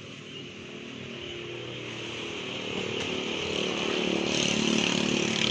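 A motor vehicle engine passing on the road, growing steadily louder toward the end.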